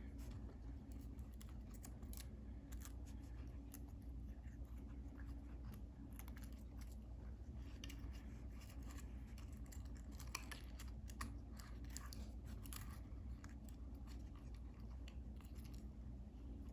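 Aluminium foil being folded and pressed by hand around a small battery contact pad, giving faint irregular crinkles and ticks that are busiest in the middle stretch, over a low steady room hum.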